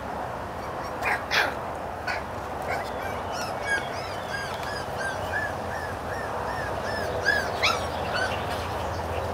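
Kooikerhondje puppies yipping and whimpering. A couple of sharp yelps come about a second in, then a run of about a dozen short, evenly spaced high calls, roughly three a second, over a steady background hiss.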